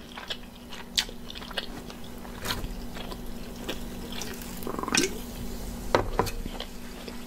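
Close-miked mouth sounds of eating: chewing and lip smacks with a few sharp clicks, then sips and a swallow from a soda can about four to five seconds in.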